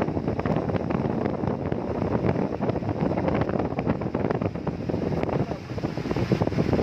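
Heavy rain falling with wind buffeting the microphone: a dense, steady rush dotted with many sharp little taps.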